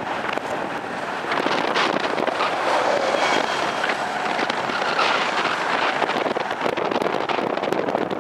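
Steady city road traffic: cars, vans and buses driving past, mixed with wind buffeting the microphone.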